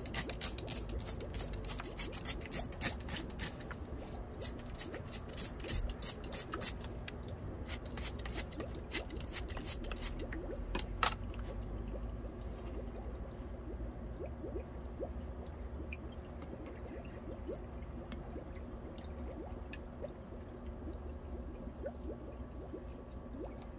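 Water dripping and trickling, over a steady low hum: a quick run of sharp drips that thins out over about the first ten seconds, then only the faint trickle and hum.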